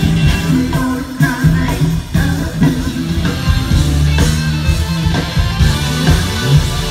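Funk band playing live through the PA, heard from the crowd: drums keeping a steady beat under a repeating bass line, electric guitar and keyboards.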